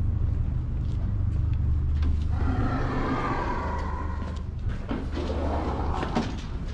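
Footsteps of someone walking in through a store's entrance doors, over a low steady rumble. A louder rush of mixed noise from the doorway and the store floor comes in about two and a half seconds in, and again near the end.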